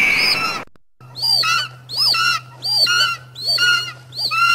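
Synthetic bird-attack screech sound effect: a loud hissing screech with a slightly falling pitch that cuts off abruptly, a brief gap, then the same squawk looped over and over about every two-thirds of a second above a low steady hum.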